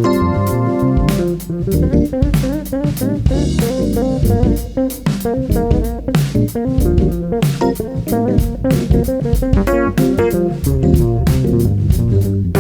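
Jazz-fusion band playing live: a melodic guitar line over bass guitar and a steady drum-kit beat.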